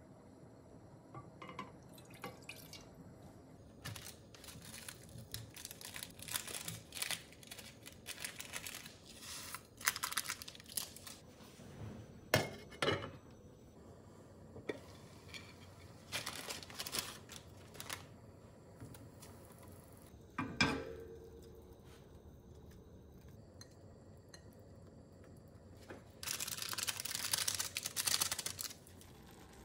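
A run of cooking sounds around a stainless steel frying pan: liquid and bits of food going in, several knocks and clinks of metal, one sharp clink with a short ring. Near the end comes about two seconds of crinkling as a ramen seasoning packet is torn open over the pan.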